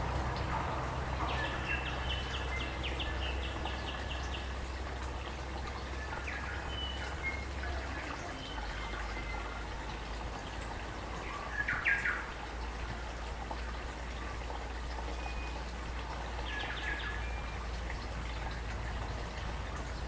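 Forest birds calling over a steadily flowing, babbling stream: a quick run of chirps about a second in, scattered short calls, and a louder call near the middle.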